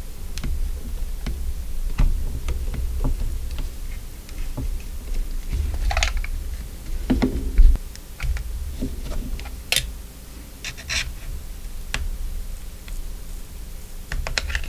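Small metal pry tool clicking and scratching under the edge of a camera's adhesive-backed rubber grip, and fingers peeling the rubber off the plastic body. It makes a run of small irregular clicks with a few louder ticks and low handling bumps.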